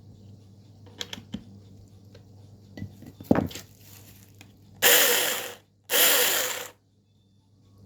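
Cordless battery chainsaw run in two short bursts of under a second each, the chain spinning up and stopping, after a few clicks and a knock of handling.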